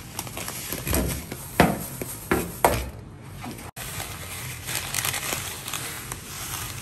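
Breadcrumbs pouring from a crinkling plastic bag onto a stainless steel tray, with a few sharp knocks in the first three seconds. After an instant's dropout about halfway, the crumbs rustle as the bag is pushed through them.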